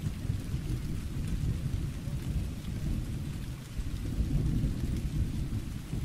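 Thunderstorm: low rolling thunder rumbling over steady rain, the rumble ebbing a little past halfway and then swelling again.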